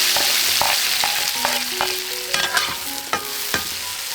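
Food dropped into hot oil in a pan: a sudden loud sizzle that slowly eases, with a spatula clicking and scraping against the pan as it is stirred.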